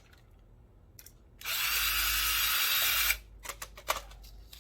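Power drill driving a screw in one steady run of about a second and a half, starting a little over a second in, followed by a few light clicks and knocks.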